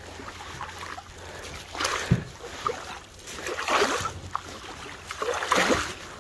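Wooden canoe paddle strokes in calm lake water: three swishes of water about two seconds apart, with a dull knock about two seconds in.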